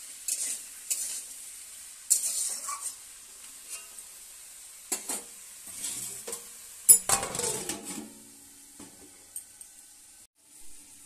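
Vegetables sizzling in hot oil in a metal kadai while a spatula scrapes and stirs them in quick strokes. About seven seconds in, a metal lid goes onto the kadai with a clang and a short ring, and after that only a faint sizzle remains.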